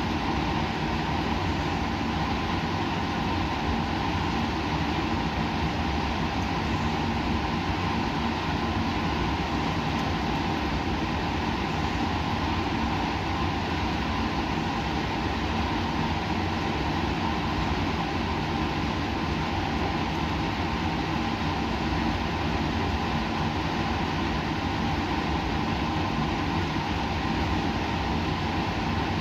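Steady hum and rushing air noise of laboratory equipment, holding a few constant low tones and never changing in level.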